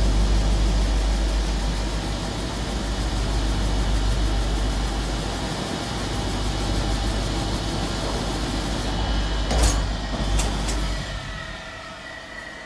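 Automatic disc polishing machine for copper cups running, its motors driving polishing wheels against the cups: a steady, dense grinding noise over a low hum. About ten seconds in come two sharp knocks, and then the noise drops away sharply.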